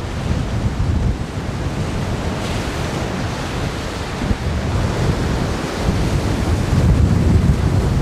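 Hurricane-force wind buffeting the microphone over the rushing wash of Lake Erie storm-surge waves flooding the shore. The buffeting rumble grows louder in the last few seconds.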